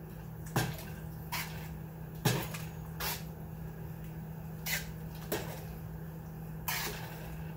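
A spoon stirring soup in a large metal stockpot, knocking and scraping against the pot about seven times, with the loudest knock a little over two seconds in. A steady low hum runs underneath.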